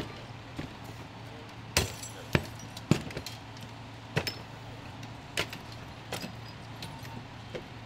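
A fire engine runs steadily with a low hum, while scattered sharp metallic clanks and knocks of firefighting gear sound over it, the loudest three about half a second apart a couple of seconds in.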